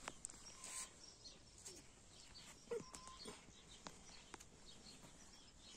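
Near silence: quiet outdoor ambience with a few faint, scattered chirps and light clicks.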